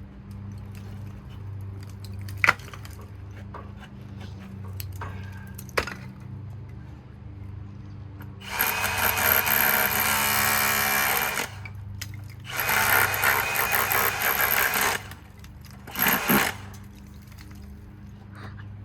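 A power tool runs in three bursts: one of about three seconds, a second of about two and a half seconds, and a short third one. A steady low hum runs underneath, and two sharp knocks come a few seconds before the tool starts.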